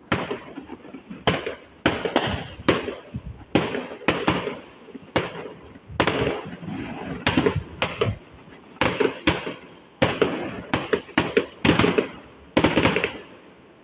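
Fireworks going off in a rapid, irregular series of sharp bangs, each with a short echoing tail, about twenty in all before they die away near the end.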